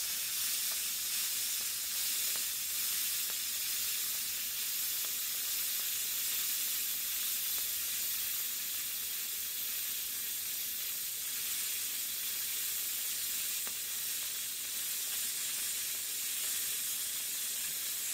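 DC TIG welding arc burning at full amperage, 165 amps, on quarter-inch steel: a steady, high-pitched hiss that holds even throughout.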